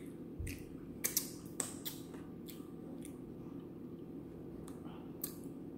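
A few faint clicks and mouth smacks of someone eating from a spoon, with a soft low thump about half a second in, over a steady low hum.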